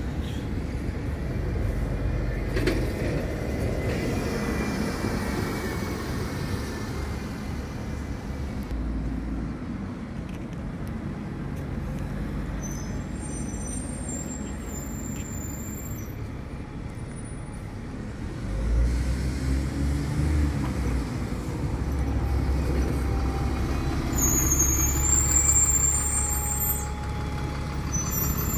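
Diesel single-decker buses running at a bus station, with the engine rumble swelling as a bus moves off in the second half. Short high-pitched squeals come in twice, mid-way and near the end.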